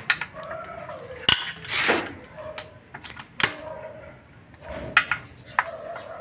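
Socket wrench being worked on the bolts of a Hyundai Santa Fe automatic transmission case during teardown: a few sharp metallic clicks and clinks of steel tools on the housing, spaced a second or more apart.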